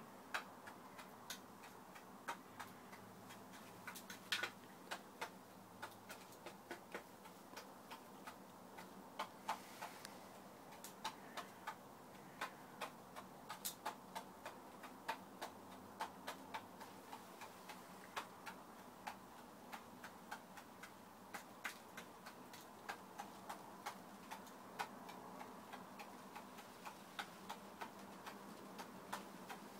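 Hybrid hens pecking grain: their beaks tap on the hard floor and in a plastic feed bowl, making a run of sharp, irregular clicks, several a second.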